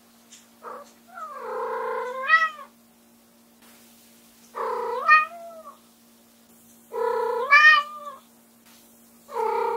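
White short-legged Munchkin cat meowing loudly over and over: a brief call, then four long drawn-out meows a couple of seconds apart, each rising in pitch at its end. The cat is calling for its owner, who has left the room.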